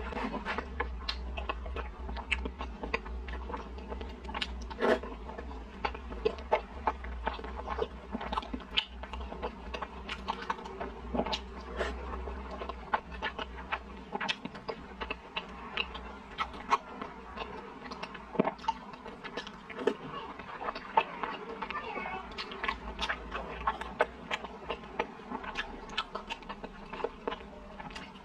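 Close-up eating sounds of a person chewing and biting soft steamed stuffed buns (baozi): a dense, irregular run of wet mouth clicks and smacks.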